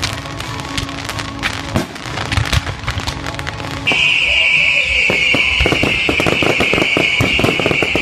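Fireworks going off: repeated bangs and crackling, with music playing under them. About four seconds in, a loud, steady shrill hiss starts and the bangs come thick and fast.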